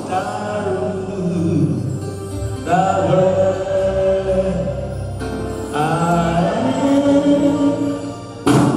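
Gospel worship singing with music, voices holding long sliding notes. A sharp knock sounds near the end.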